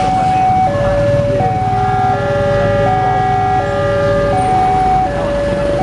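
Railway level crossing alarm sounding its two alternating tones, each held for just under a second. From about a second and a half in, a long steady horn blast sounds over it for about three and a half seconds, with engine rumble beneath.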